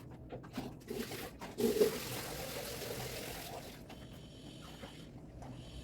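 Water running or pouring in a rush for about two seconds, then a fainter high hiss, with a few light knocks before it.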